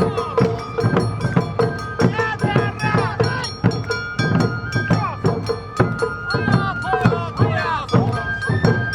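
Awa Odori festival band playing: drums strike an even beat with a high bamboo-flute melody over it, and voices shout rhythmic calls.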